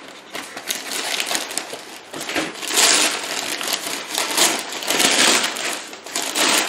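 White packing paper rustling and crinkling in irregular bursts as it is pulled away from a wrapped orchid, loudest about three and five seconds in.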